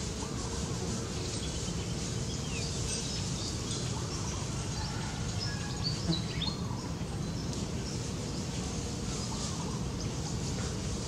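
Steady outdoor background noise with a few short, high animal chirps and calls scattered through it, most of them in the middle of the stretch.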